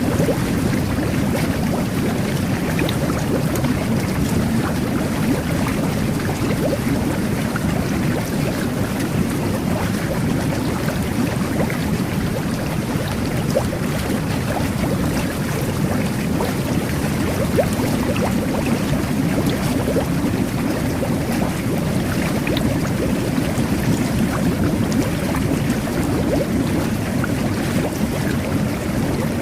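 Jet bath (whirlpool tub) churning water: jets forcing bubbles through the bathwater in a steady, low, bubbling rush with small pops and splashes throughout.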